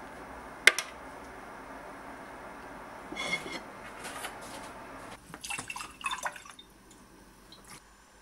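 Metal kitchen tongs clicking sharply against a ceramic plate while steamed cabbage leaves are laid on it. This is followed by dishes clinking and being set down and picked up on a counter, over a steady hiss that stops about five seconds in.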